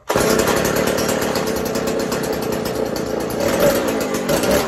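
Stihl 07S two-stroke chainsaw engine bursts into life and runs loud and rough, its low-speed mixture screw just opened another full turn while the carburettor is being tuned; the pitch swells and wavers a little after three seconds in.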